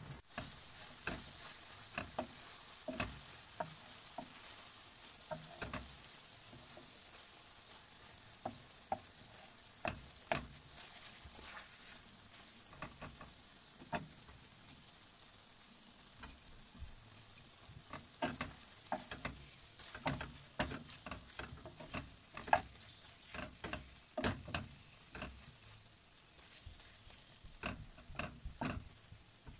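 Chicken and mushrooms sizzling in a reducing cream sauce in a nonstick frying pan, a steady hiss, while a wooden spoon stirs and knocks against the pan in many sharp clicks, most of them in the second half.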